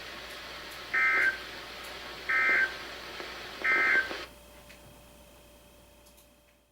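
NOAA Weather Radio SAME end-of-message data bursts: three short, loud digital warbles a little over a second apart, heard over the broadcast's background hiss through a weather radio. They signal the end of the flood warning. After the third burst the hiss drops away and the sound fades out.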